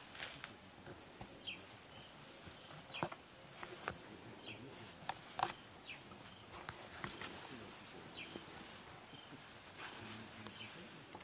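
African bush elephants browsing: scattered sharp snaps and cracks of twigs and branches with leaf rustling, the loudest crack about five seconds in, over faint short bird chirps.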